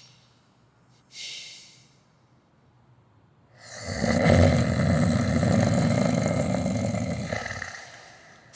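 A man snoring once, loud and long: a single snore of about four seconds that starts some three and a half seconds in and fades near the end. It follows a short breath about a second in.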